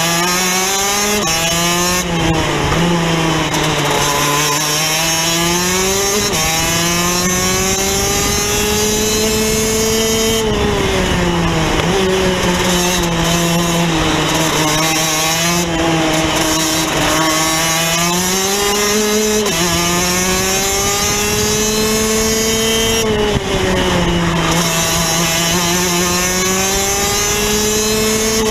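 Onboard sound of a Rotax DD2 kart's single-cylinder two-stroke engine racing, its pitch climbing under acceleration and falling away into the corners several times over, with a couple of sudden drops in pitch.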